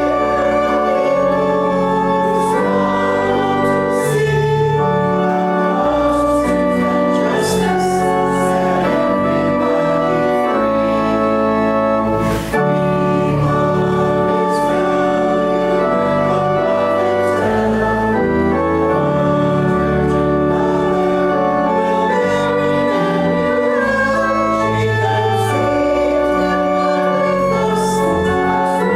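Church organ playing a hymn in sustained chords that change step by step, with congregational singing faintly along, and a brief break about twelve seconds in.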